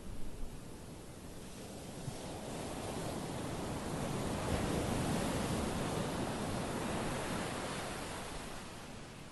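Small sea waves breaking and washing up a sandy, pebble-strewn beach. The wash swells to its loudest about halfway through, then ebbs away near the end.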